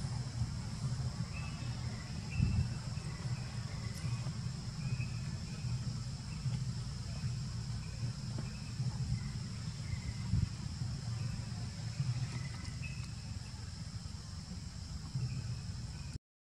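Outdoor ambience: a steady high-pitched insect drone with short bird chirps now and then, over a low steady rumble. The sound cuts out briefly near the end.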